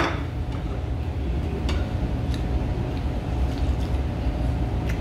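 A ceramic bowl clinks against the table at the very start, then a few faint clicks of bowl and spoon being handled, over a steady low rumble of room noise.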